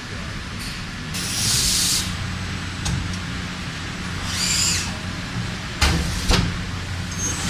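Mill-turn machining centre running with a steady low hum, broken by two bursts of hissing, once about a second in and again past the middle. A few sharp knocks come near the end.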